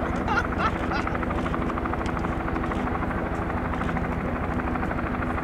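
The four Wright R-1820 Cyclone nine-cylinder radial engines of a B-17G Flying Fortress droning in flight: a steady, deep engine note with a fast, even throb.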